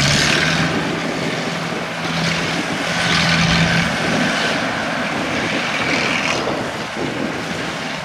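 Rice combine harvester's diesel engine running steadily with a continuous mechanical hum and hiss.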